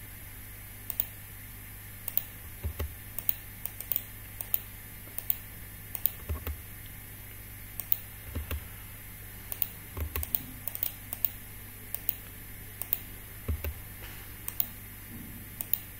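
Irregular clicking of a computer keyboard and mouse, a few clicks a second, with now and then a dull low knock, over a faint steady hum.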